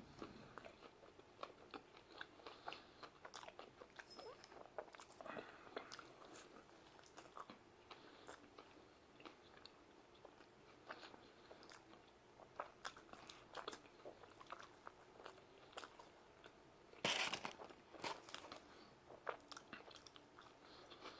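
Faint, close-miked chewing of pizza: scattered soft crunches and mouth clicks, with a louder burst about seventeen seconds in.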